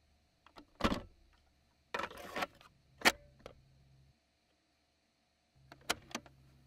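Cassette deck piano-key buttons and tape transport clicking and clunking: a click about a second in, a rattling clunk at two seconds, a sharp click at three, and two quick clicks near the end. A low motor hum starts, stops, and starts again between the presses.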